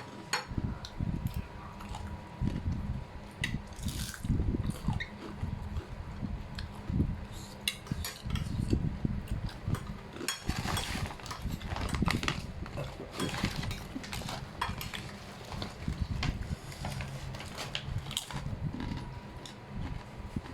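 Close-up eating sounds: chewing in short, irregular bursts, with cutlery clicking against a plate now and then. A faint steady high hum runs underneath.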